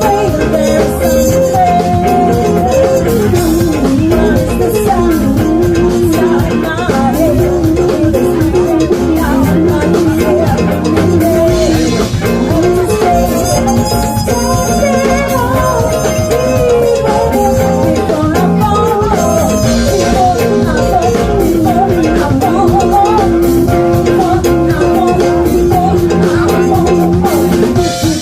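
Loud music with drums keeping a steady beat under a wavering melody line.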